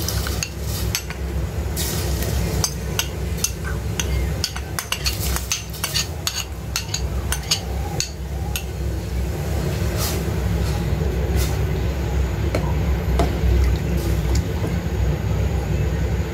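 A metal ladle stirring soup in a metal pot, clinking and knocking against the pot's sides, many times in quick succession at first and more sparsely later, over a steady low hum.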